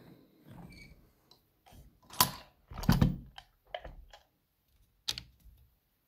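A brass key-in-knob lock cylinder being set and clamped into a small bench vise: a series of separate sharp clicks and knocks, the loudest two about two and three seconds in, with lighter taps and handling rustle between.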